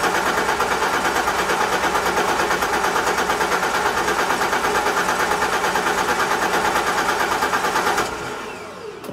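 BMW E30's M20B25 2.5-litre straight-six turned over by the starter motor in a fast, even rhythm without firing; the cranking stops about eight seconds in. It cranks but won't start because it has no fuel and no spark, a fault the owner thinks came from mixed-up crank position sensor plugs.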